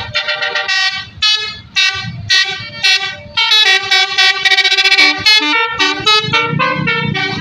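Basuri telolet multi-tone air horns on buses playing a quick melody of short notes that change pitch note by note, with a longer held chord partway through.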